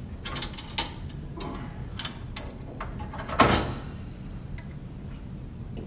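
Metal racking bracket of an SR-U remote racking system being unlatched and lifted off a switchgear cubicle: several sharp clicks and knocks, with one louder metallic clank about three and a half seconds in.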